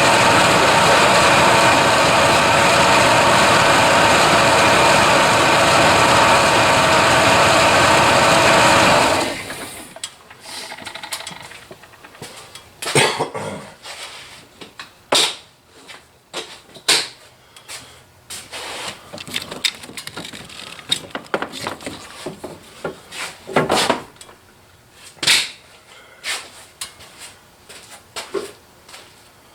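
Chevrolet S10 pickup engine running steadily, then cut off suddenly about nine seconds in; this is the test run that confirms the new 4x4 actuator works. After that come scattered clicks and knocks.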